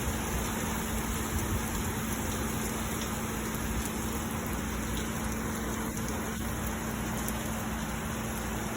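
Steady hiss of rain and wet road noise heard from inside a moving car, with a constant low hum underneath.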